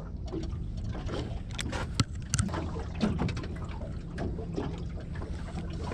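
Steady low rumble aboard a small boat at sea, with a few sharp clicks and knocks, the strongest about two seconds in, as a spinning rod and reel are handled.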